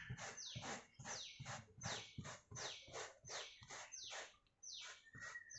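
Stiff hand brush scrubbing dirt loose from a carpeted car floor mat: quick scratchy strokes, two or three a second, each sliding down in pitch, with a brief high squeak near the end.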